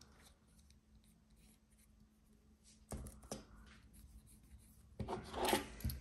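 Fingers handling and rubbing two metal watch deployant clasps: two short bouts of faint scraping and light clicks, about three seconds in and again about five seconds in, after a near-silent start.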